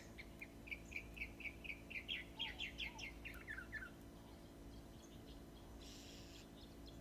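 A songbird singing faintly outdoors: a quick run of short, high repeated chirps, about four a second, ending with a few lower falling notes about four seconds in.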